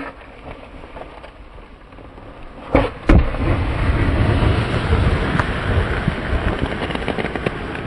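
Snowboard rumbling over snow, with two sharp knocks about three seconds in. After the knocks the rumble turns much louder and denser.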